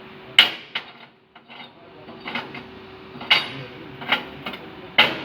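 Sharp metallic clinks and knocks at irregular intervals, about six in all, as welded steel pieces are handled or struck.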